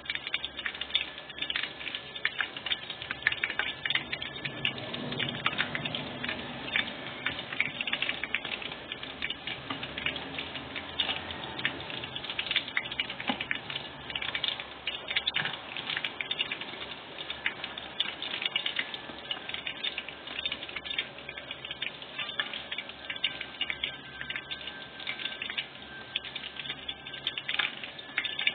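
Food deep-frying in a stainless-steel pot of hot oil: a dense, continuous crackling and spitting.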